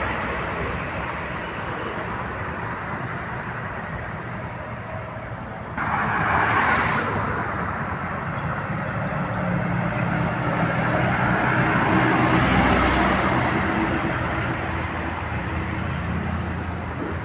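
Toll-road traffic with heavy vehicles passing. A sudden loud rush of noise starts about six seconds in and lasts under two seconds. Another vehicle swells past, loudest around twelve to thirteen seconds in.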